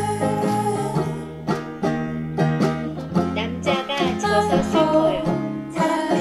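Background music led by a plucked string instrument, picking out a steady, bright melody.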